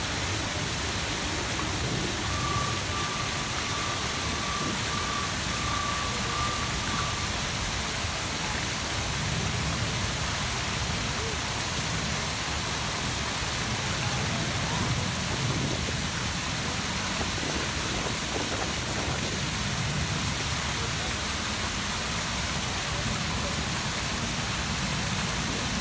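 Grand Cascade fountains: the tall Samson jet and many smaller jets and cascades splashing into the pool, a steady rushing hiss of falling water.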